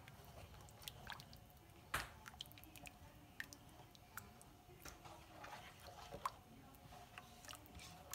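Thick, creamy white sauce being stirred with a spoon in a frying pan: faint wet squelching with scattered small pops and clicks, and a sharper click about two seconds in.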